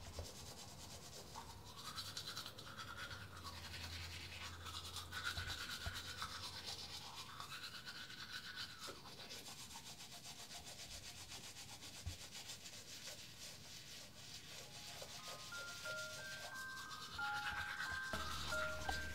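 Manual toothbrush scrubbing teeth, a faint steady brushing rasp. About fifteen seconds in, a chiming ice cream truck jingle of short bell-like notes starts up and gets louder toward the end.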